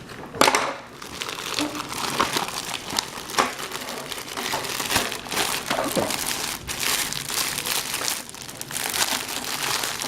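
Plastic mailing bag crinkling and rustling as it is handled and opened, with scattered sharp crackles throughout.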